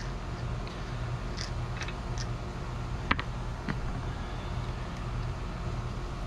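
A steady low mechanical hum with a few light ticks and one sharp click about three seconds in.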